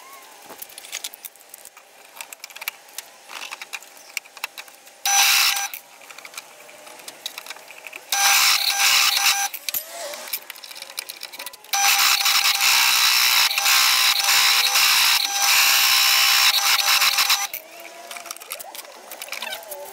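Bench drill press running a large Forstner bit down onto a wooden slab in three bursts, the longest about six seconds. It makes a steady high whine with a harsh grinding noise over it, with clicks and knocks of handling in between. The bit is not cutting properly: the woodworker says it is not working.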